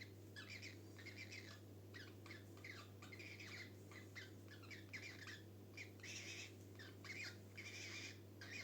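Pet cockatiels chirping and calling faintly in quick short notes, with longer warbled calls every second or so, over a steady low hum.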